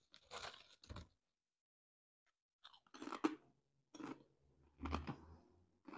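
A person biting into and chewing thick kettle-cooked crinkle-cut potato chips: a few faint crunches, roughly one a second, starting about three seconds in. Before that, near the start, the chip bag rustles briefly as a chip is taken out.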